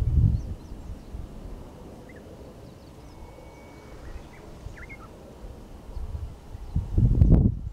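Wind buffeting the microphone in gusts, strongest at the start and again near the end, with a few faint, short high bird chirps in the calmer middle.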